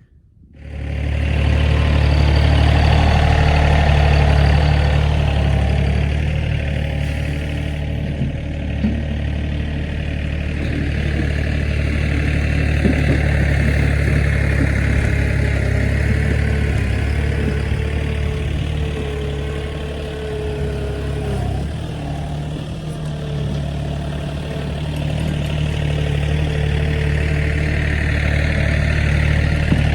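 Engine of a farm machine running steadily close by, its level swelling and easing a little, with faint clatter now and then.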